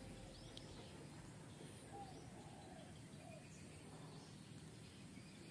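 Near silence with a few faint bird calls: short high chirps and some lower arched calls scattered over a quiet background.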